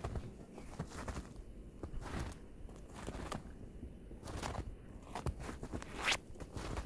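Footsteps crunching through snow at a walking pace, a short crunch with each step, the loudest about six seconds in.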